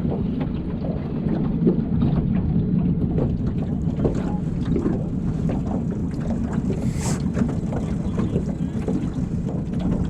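Fishing boat's motor running steadily at trolling speed, a low even rumble with frequent small knocks, and wind buffeting the microphone. A brief hiss about seven seconds in.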